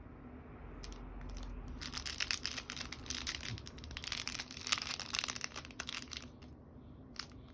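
Something crinkled or crumpled by hand: a dense run of crackling from about two seconds in to about six seconds, then a single click near the end.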